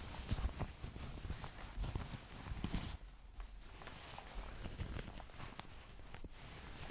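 Cloth rustling and crinkling close to the microphone as clothing is handled and wrapped around someone, in irregular, uneven bursts.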